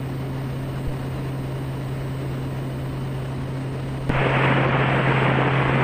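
Quest Kodiak's turboprop engine and propeller running steadily in cruise, a constant low hum under a noisy haze. About four seconds in, a louder radio hiss opens up.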